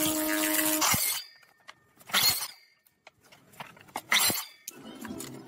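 A power tool's motor running with a steady hum stops about a second in. Then come two short noisy strokes about two seconds apart and a few small clicks and knocks of work with tools and materials.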